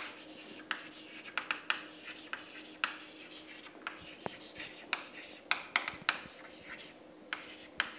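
Chalk writing on a chalkboard: short, irregular taps and scratches as each letter is stroked on.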